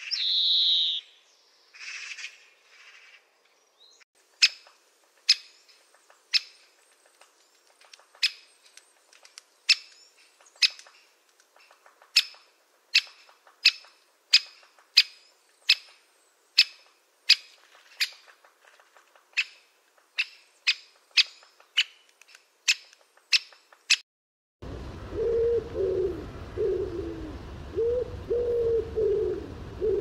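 A European greenfinch calls briefly. Then a great spotted woodpecker gives sharp single "kik" calls, spaced about half a second to a second apart. About 25 s in, pigeons start cooing in a steady repeated phrase.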